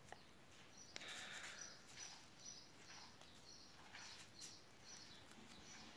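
Near silence: faint rustling of paper banknotes handled in a stack, with faint, repeated high bird chirps in the background.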